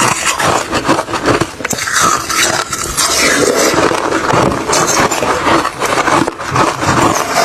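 Refrozen crushed ice and shaved ice being chewed close to the microphone: loud, continuous, dense crunching and crackling.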